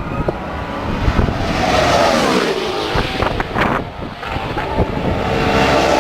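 Racing cars going past at speed. One engine note drops in pitch as it passes about two seconds in, and a second car comes up near the end and drops in pitch as it goes by.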